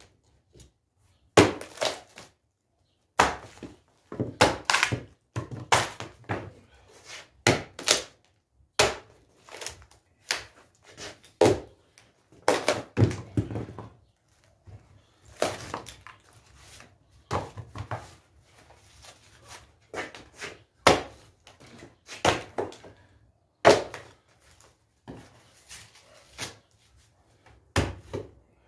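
Hatchet chopping thick bark off a poplar log: irregular strikes of the blade into the wood, some in quick runs of several blows.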